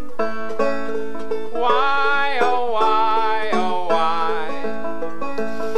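A man singing long, wavering notes over plucked-string accompaniment in a folk-style children's song.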